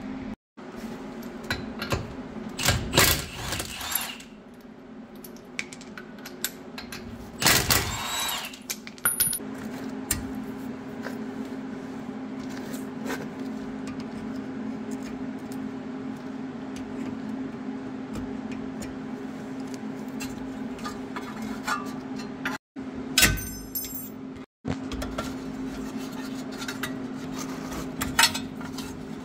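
Hand tools and metal brake parts clinking and clattering as a rear disc brake caliper bracket and caliper are handled and fitted, with a few louder bursts of tool noise over a steady low hum.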